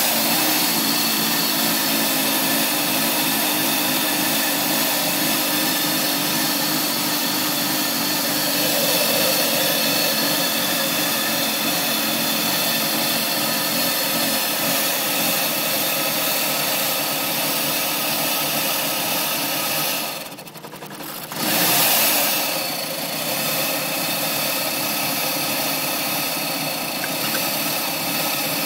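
Mazda 6 2.3-litre four-cylinder engine idling roughly. About twenty seconds in the sound sags away for a moment and then picks back up. This is the rough idle with dropping revs and stalling that followed the car standing unused for three months, cause unknown.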